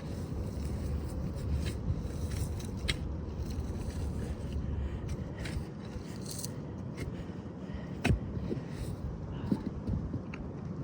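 Scraping and clattering as a compost bucket is emptied onto the compost pile, with scattered clicks and one sharp knock about eight seconds in, over a low rumble.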